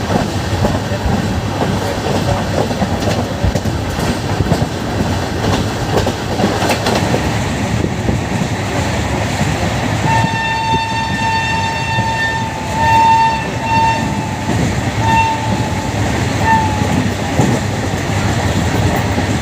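Wheels and coaches of a moving passenger train clattering steadily, heard from on board. About halfway through, a shrill train horn sounds: one long blast of a couple of seconds, then a few shorter blasts.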